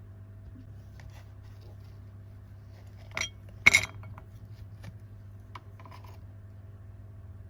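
Two sharp clinks of hard objects about half a second apart, the second louder and ringing briefly, followed by a few faint light clicks. A low steady hum runs underneath.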